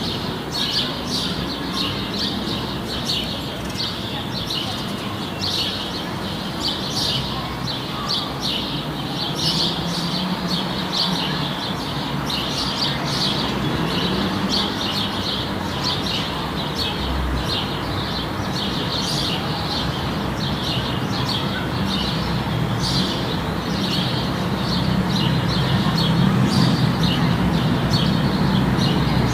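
A flock of small birds chirping busily, many short overlapping calls with no pause, over a low background hum that grows louder near the end.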